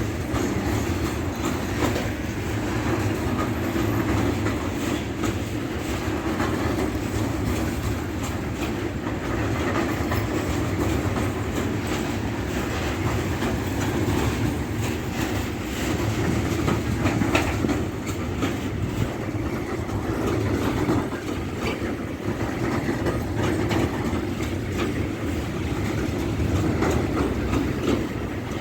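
A train rolling steadily past on the line, its wheels clattering over the rails with a continuous rumble.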